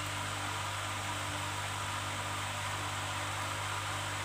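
Steady hiss with a low hum underneath, unchanging and with no voice.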